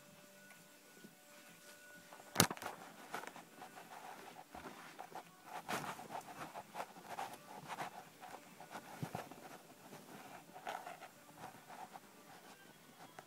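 Handling noise: one sharp click a couple of seconds in, then irregular rustling and light tapping.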